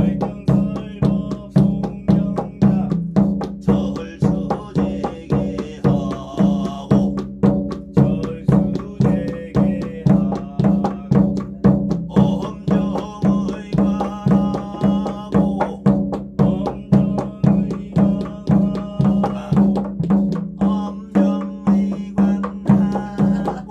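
A drum beaten in an even rhythm, about two strokes a second, under a sung chant of Korean shamanic scripture (gyeongmun): practice at fitting the chant to the basic rhythmic cycle (jangdan).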